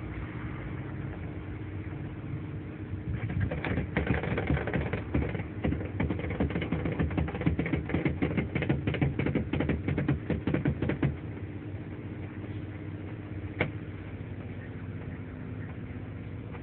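Rapid clicking and creaking for about eight seconds as a car is lowered off a jack onto a fibreglass subwoofer enclosure, with one lone click later, over a steady low hum.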